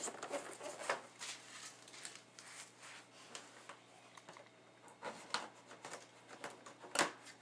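Hands handling and opening a cardboard retail box: scattered light rustles, scrapes and taps, with a sharper click near the end.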